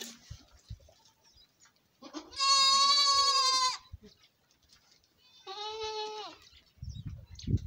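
Goats bleating: one loud, drawn-out bleat about two seconds in, then a shorter, quieter bleat a few seconds later. Low rumbling noise follows near the end.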